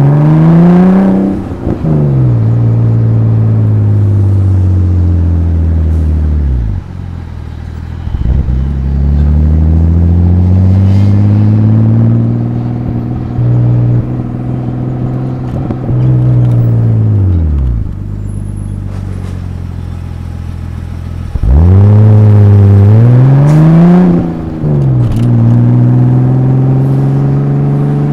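Exhaust of a Nissan Skyline R31's RB25DET Neo turbocharged straight-six, heard from right at the tailpipe, pulling through the gears: the note climbs under acceleration and drops sharply at each gear change. Twice it eases off to a low idle before pulling away again, and the hardest, loudest rev-up and shift comes near the end.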